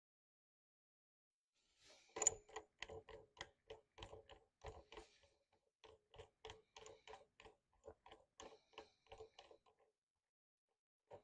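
Light, rhythmic clicking from the overdrive's parts being worked by hand, about three clicks a second. It starts about two seconds in and stops shortly before the end.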